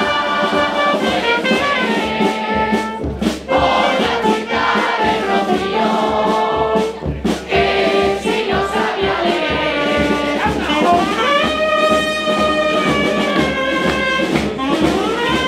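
Live carnival brass band: trumpets and a tuba playing along with a bass drum keeping a steady beat, while a group sings a murga-style song in unison.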